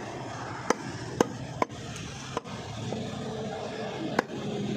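Heavy butcher's cleaver chopping mutton on a wooden block: about five sharp chops at uneven intervals, the last after a pause of nearly two seconds.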